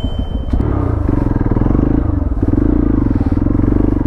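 Hero Xpulse 200 4V motorcycle's single-cylinder engine running under throttle, its note growing stronger in the second half.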